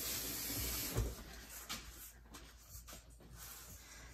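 A steady hiss cuts off with a soft thump about a second in, followed by a few faint scattered clicks and knocks.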